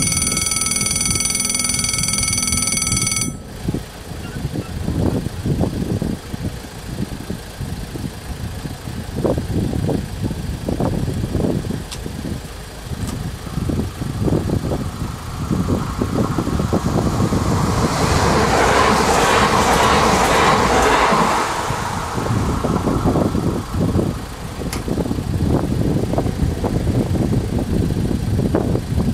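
Level-crossing warning ringer sounding a steady electronic ring as the barriers come down, cutting off about three seconds in. Later a train passes over the crossing, its noise swelling for a few seconds and fading away.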